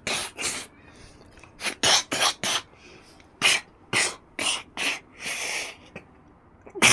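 A person in a coughing fit: about a dozen short, harsh coughs in clusters of two or three, with a longer rasping cough about five seconds in.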